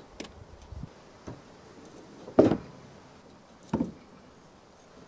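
A few light clicks and two short knocks about a second and a half apart, the first the louder: aluminium electrical conduit and its fittings being handled and set down on a wooden trailer deck.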